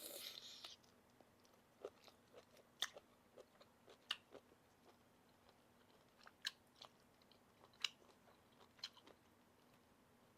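A person chewing som tam thale (seafood papaya salad) close to the microphone: irregular crisp crunches and mouth clicks, with a short hiss-like burst right at the start.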